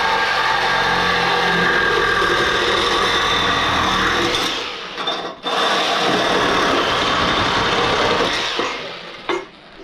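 Reciprocating saw (Sawzall) cutting through the metal exhaust on a small engine, running steadily. It stops briefly about five seconds in, cuts again, and winds down near the end.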